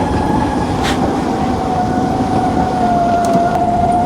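Ather electric scooter's motor whining in regenerative braking on a downhill run, a steady tone that sinks slightly in pitch over dense wind and road noise.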